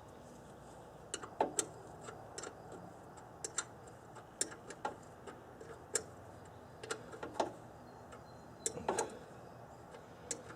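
Scattered light clicks and ticks of a hand wrench and metal parts being worked while the new oil filter is fitted, coming at uneven intervals about once or twice a second.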